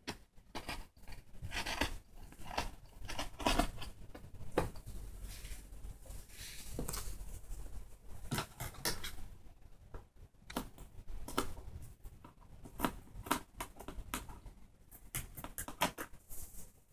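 Scissors snipping through sweatshirt fabric in a run of irregular cuts, the snips coming thicker in the second half, with the fabric rustling as it is handled.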